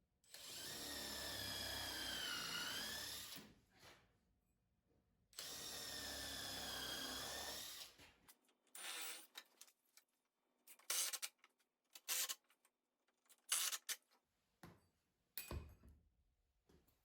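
Power drill driving wood screws into plywood: two runs of about three seconds each, the motor's pitch dipping as each screw bites, followed by a string of brief, sharp sounds.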